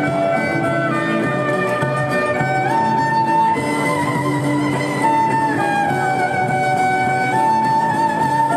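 Solo violin playing a slow melody of long held notes that step from one pitch to the next, over a lower accompaniment.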